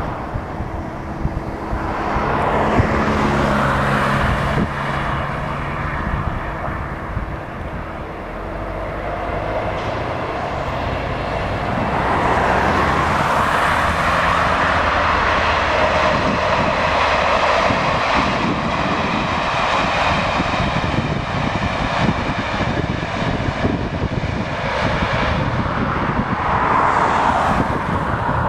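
Class 67 diesel locomotive, with its two-stroke V12 engine, hauling a train of passenger coaches past: a steady engine drone early on, then a broader, louder rush of the passing train from about halfway through.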